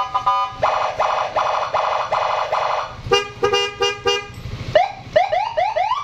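Custom-fitted electronic siren on a motor scooter, switched through several tones from a handlebar button panel: a fast pulsing warble in short repeated bursts, then about four horn-like blasts, then quick rising yelps near the end.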